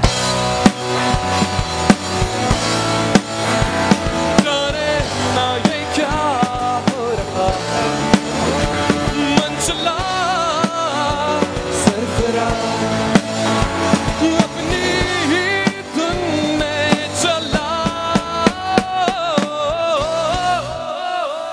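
Rock band playing an instrumental passage: electric guitars over drum kit and bass, with a lead line that bends and wavers in pitch.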